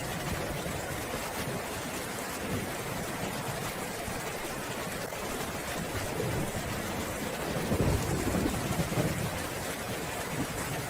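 Steady rain with a low rumble of thunder that swells about six seconds in, peaks around eight seconds and dies away.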